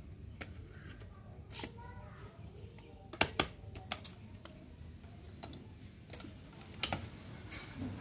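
Sharp metal clicks and clacks as the end housing of a washing-machine motor is handled and pressed onto the stator. The housing has not yet seated fully. The clicks are scattered, and the loudest come a little after three seconds and near seven seconds in.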